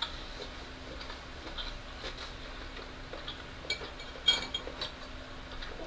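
A few light clicks of a knife and fork against a ceramic plate, the sharpest about four seconds in, over a faint steady hum.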